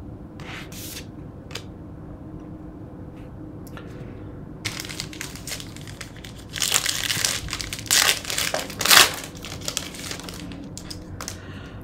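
Foil wrapper of a basketball card pack crinkling and tearing open by hand, a run of loud crackly bursts starting about halfway through. Before that, only a few light clicks of cards being handled.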